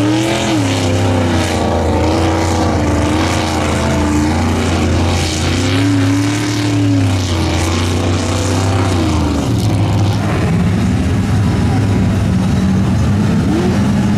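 Pickup truck engine revving up and down as it ploughs through deep mud, with the churn and spray of tyres throwing mud and water. The revs rise and fall several times, and about ten seconds in a lower, steadier engine note takes over.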